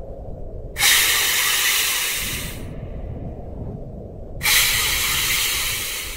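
Two long hisses, each about two seconds, that start sharply and fade away, over a low rumble.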